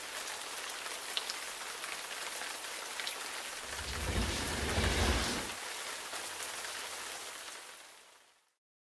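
Heavy rain falling steadily, with a low roll of thunder rumbling about four to five seconds in. The rain fades out near the end.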